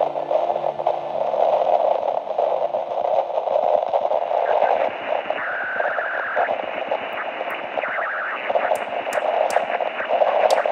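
Portable radio hissing and crackling with static, a whistling tone coming and going three times. A run of sharp high ticks joins in over the last few seconds.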